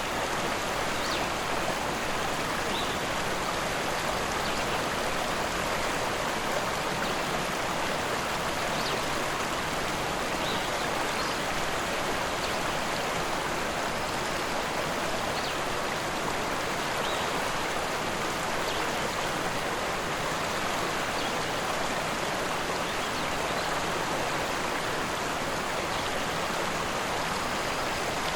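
Rushing river water running in a steady, even rush, with faint brief high ticks now and then.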